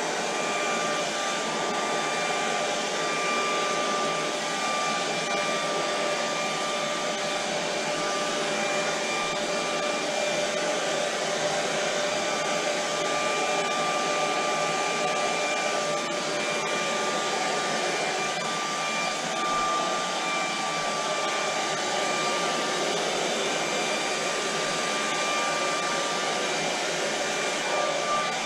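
Handheld blow dryer running steadily throughout: a constant rush of air with a thin, steady motor whine over it.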